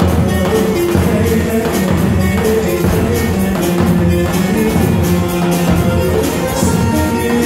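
Live Turkish slow halay (ağır halay) music: a male singer sings into a microphone over bağlama (saz) and keyboard, amplified through a PA system. It plays loud and steady, with held notes over a regular beat.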